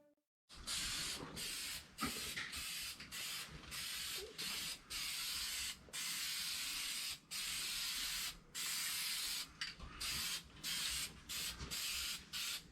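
Aerosol spray paint can spraying in a long series of short hissing bursts, each about half a second to a second long, with brief pauses between them.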